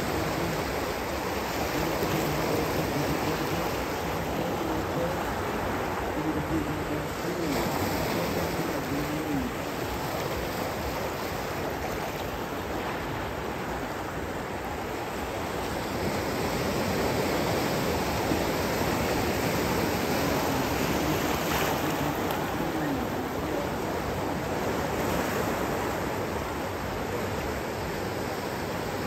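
Steady rush of ocean surf breaking on the beach, swelling and easing a little over time.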